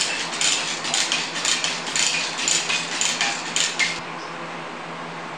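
Manual chain hoist being hand-pulled to lift a heavy concrete casting: the metal chain clinks through the hoist in rhythmic pulls, about two a second, and stops about four seconds in.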